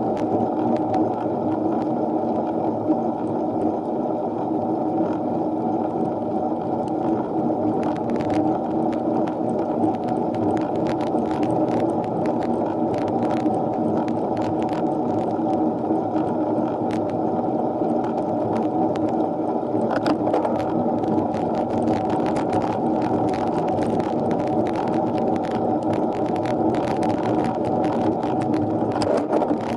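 Steady muffled rumble of wind and road noise picked up by an action camera on a bicycle riding uphill, with scattered light clicks and knocks from the road and drivetrain.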